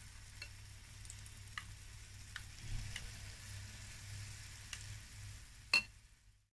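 Batter fritters frying in hot sunflower oil in a pan: a soft, steady sizzle with scattered small pops. A single sharp click near the end is the loudest sound, then the sizzle fades out.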